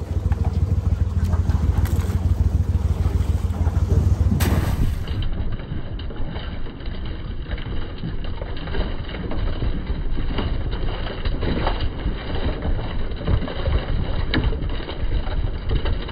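Wind buffeting the microphone over a low rumble on an open boat; then a wire crab trap being shaken out over a plastic basket, with blue crabs and wire mesh clattering in many short knocks and rattles.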